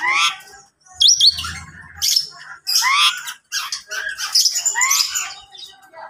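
Several caged birds of different kinds chirping and calling over one another, with quick sharp chirps and repeated rising calls, and a short high-pitched double note about a second in.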